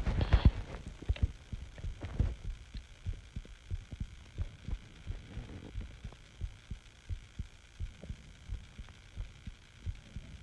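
Human heartbeat heard close up: a steady run of low, dull thumps. A breath comes through near the start and another about two seconds in.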